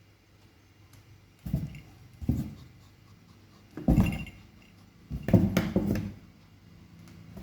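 Kittens scuffling and scrabbling in a cardboard box, heard as several short bursts of knocks and scratching on the cardboard.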